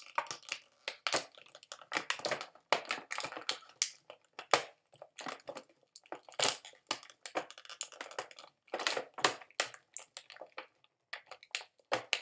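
Hands working a plastic action figure and its small parts: a continuous run of irregular crackles, clicks and rustles.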